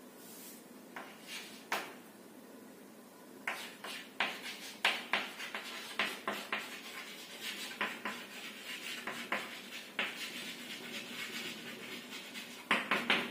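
Chalk writing on a chalkboard: a run of short scratching and tapping strokes, starting about three and a half seconds in, after a few faint taps.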